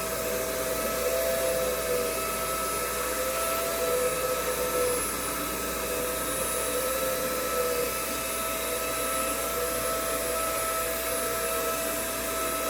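Xiaomi window-cleaning robot running: its suction fan makes a steady whine with a constant hum, and a second, lower whine wavers up and down in pitch as it works.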